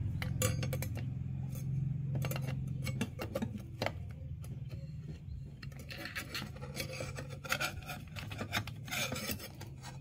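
Scattered light metallic clicks and scraping as a steel saw blade is handled and fitted onto a cordless mini circular saw. Underneath is a low steady hum that drops off after about three seconds.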